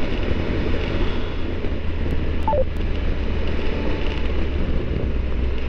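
Steady wind rush on the microphone over the low rumble of a Triumph Tiger 1200's three-cylinder engine, the motorcycle cruising along at road speed.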